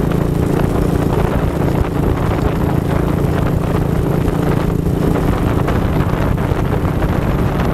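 ATV engine running steadily while the quad rides along a dirt trail.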